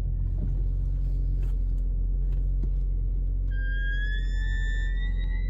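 Nissan car running with a steady low rumble; about three and a half seconds in, its brakes start a high-pitched squeal ('silbido') that rises slightly in pitch and lasts about two seconds.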